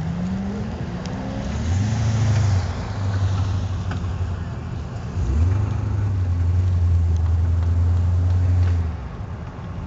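Corvette V8 engine running hard through an autocross course. The pitch rises over the first second and a half. From about five seconds in it holds a loud steady note, then drops away near the end.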